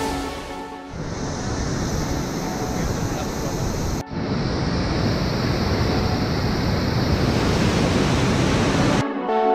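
Steady rush of whitewater pouring over a river weir, with a brief dropout about four seconds in. Music fades out in the first second and comes back in near the end.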